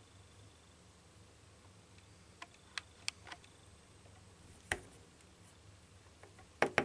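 Scattered sharp clicks and taps over a faint low hum: a few light clicks, a louder knock in the middle, and a quick double click near the end.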